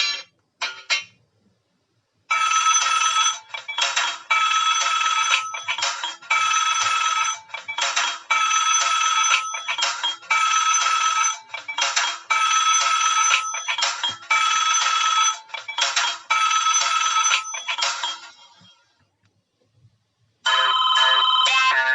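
Fly E155 mobile phone ringtones: one tone ends just after the start, then a melodic ringtone plays for about sixteen seconds, its short phrase repeating about every two seconds, and another ringtone begins near the end after a brief pause.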